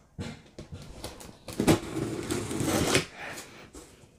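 Knife blade slitting the packing tape along a cardboard box's seam: a few light clicks and scrapes, then a louder, continuous cutting scrape lasting about a second and a half, halfway through.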